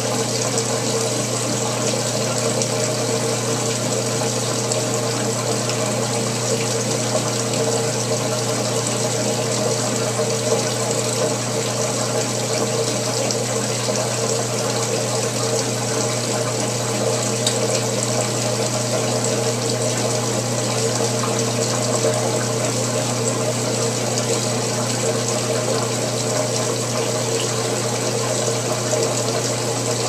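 Top-loading washing machine running, a steady low motor hum under the sound of water moving in the tub.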